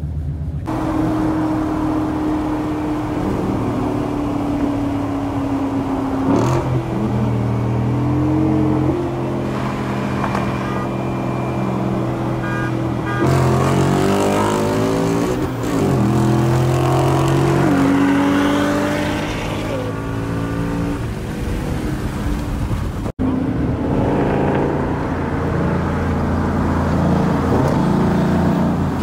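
Performance car engines accelerating hard in highway roll races, heard from inside one of the cars. The engine notes climb and step down at each gear change, over steady road noise.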